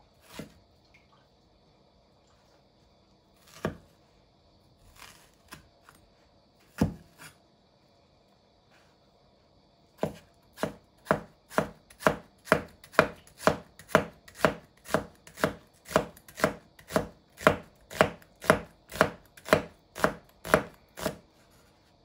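Knife slicing an onion on a wooden cutting board. A few separate knocks of the blade on the board come in the first seven seconds, then steady thin slicing at about two strokes a second for the second half.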